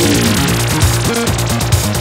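Dark wave electronic music: layered synthesizers over a steady electronic beat with fast, even ticks and repeating bass notes, a falling synth glide trailing off near the start.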